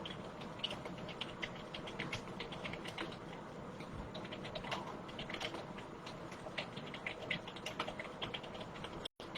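Computer keyboard being typed on at a steady speed during a timed typing test: a rapid, irregular stream of key clicks.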